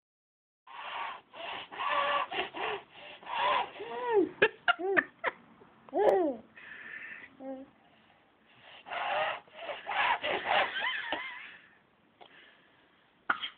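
A baby sniffling and snuffling through a stuffed-up nose: runs of short raspy sniffs, broken by brief squeaky baby sounds that slide up and down in pitch, fussy with the sniffles.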